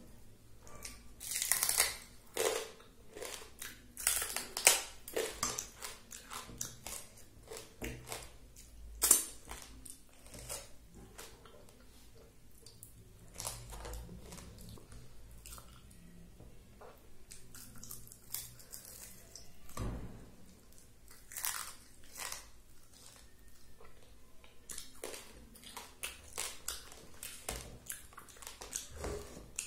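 Close-up chewing of a person eating rice and fried fish by hand, picked up on a clip-on lapel microphone: irregular sharp clicks and crunches, a few louder ones in the first nine seconds.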